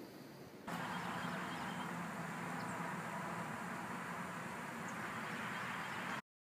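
Outdoor ambience: a steady rushing background noise with a low hum under it, coming in abruptly a little under a second in and cutting off to silence just before the end.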